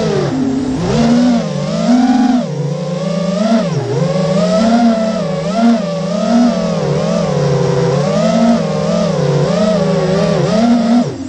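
QAV-X FPV racing quadcopter's T-Motor brushless motors and propellers whining. The pitch keeps rising and falling as the throttle is worked through turns, and drops sharply near the end.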